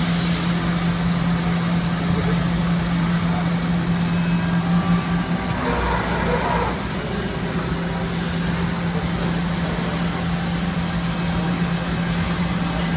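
Hydraulic press brake running with a steady low hum from its pump. About six seconds in there is a short rush of noise, after which it runs slightly quieter.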